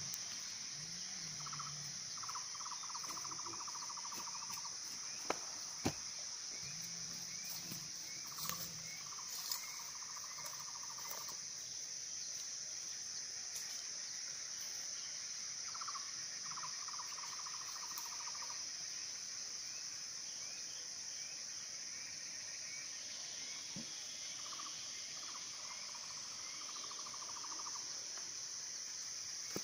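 Insect chorus: a steady high-pitched buzzing of insects. A pulsed call lasting about two seconds repeats four times, roughly every seven seconds. A pair of sharp clicks falls around five to six seconds in.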